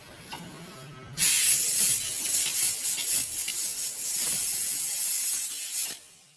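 Aerosol spray hissing in one steady burst of about five seconds, starting abruptly about a second in and stopping shortly before the end.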